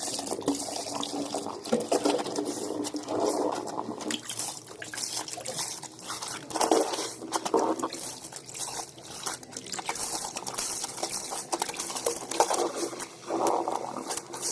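Soapy denim jeans being hand-washed in water: irregular sloshing, splashing and dripping as the wet fabric is worked.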